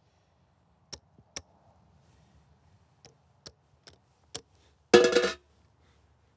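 Mancala pieces clicking down into the board's pits one at a time, six light clicks at an uneven pace as a move is sown. A short loud pitched sound, about half a second long, follows about five seconds in.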